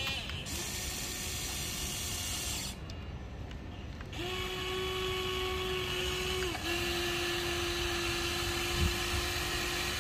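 Electric motors of a Huina RC excavator whining steadily as the boom and stick move. The whine is faint at first, grows louder about four seconds in, and breaks off briefly before carrying on.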